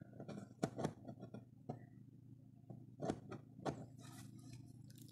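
Faint scattered sharp clicks over a steady low electrical hum.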